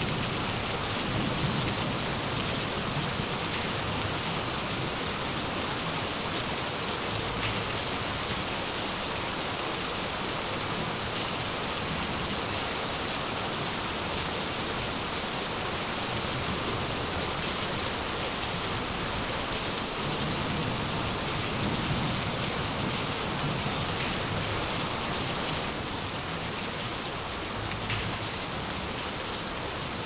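Steady rain falling on surfaces, an even hiss throughout, with low rumbles of thunder about a second in and again around twenty seconds in.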